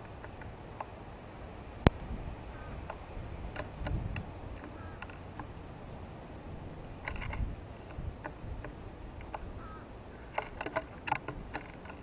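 Sharp clicks and taps of male painted buntings pecking and cracking seed on a wooden feeding platform close to the microphone: one loud click about two seconds in, then scattered taps and quick clusters of clicks near the middle and toward the end, over a low steady background noise.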